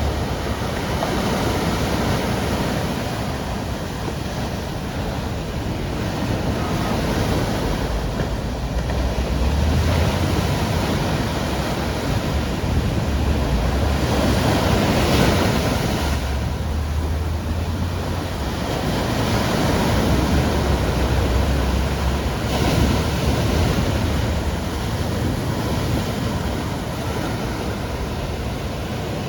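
Caribbean sea waves breaking and washing against the shore, surging louder every few seconds, with a low rumble of wind on the microphone.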